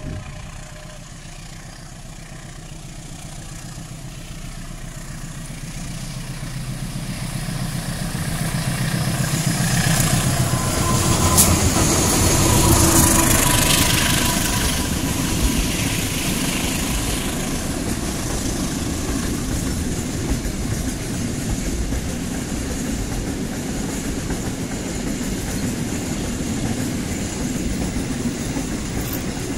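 A diesel locomotive hauling a container freight train approaches. Its engine grows steadily louder and is loudest as it passes, about twelve seconds in. After that comes the steady rumble and clatter of the container wagons rolling by on the rails.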